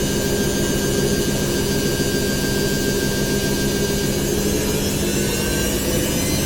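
Washing machine drum spinning fast in its spin cycle: a steady mechanical whir with a held hum and a whine over a hiss. A faint tone creeps slowly up in pitch near the end.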